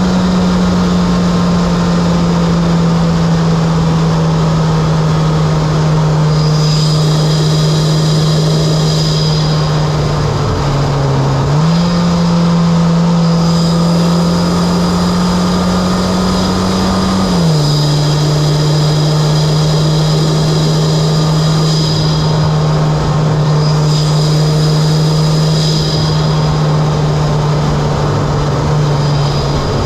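Mitsubishi Lancer Evolution X's turbocharged 2.0-litre inline-four, with an aftermarket Injen intake and HKS exhaust, running while the car is driven, as a steady low drone. Its pitch drops about ten seconds in, rises again a second or two later, and drops once more past the middle, following changes in engine speed.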